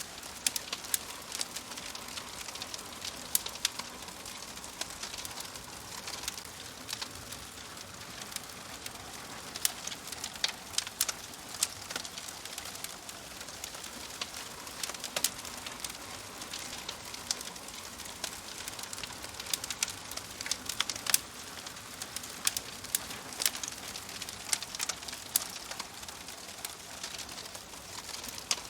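Wood fire crackling in a stove: a steady soft hiss with frequent sharp pops and snaps at irregular intervals.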